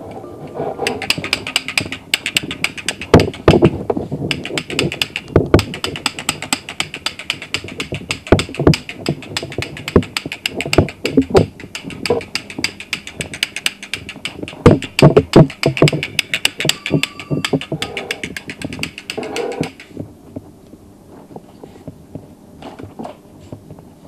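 Sound-effects playback of a dense crackle of many sharp pops over a hiss, for about twenty seconds, then thinning to scattered, fainter pops.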